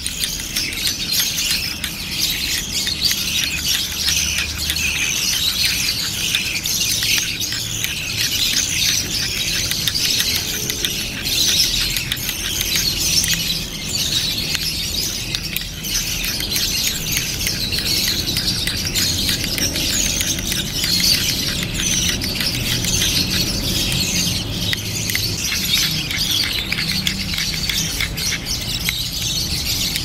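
Many small pet birds chirping and chattering non-stop, a dense high-pitched chorus of overlapping calls.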